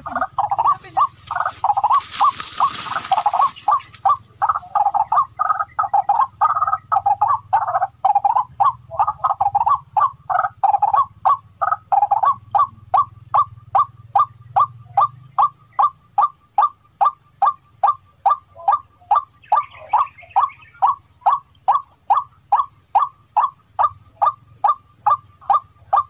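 Waterhen (jal murgi) call played as a hunting lure: a run of harsh, overlapping notes that settles into a single note repeated evenly about two or three times a second.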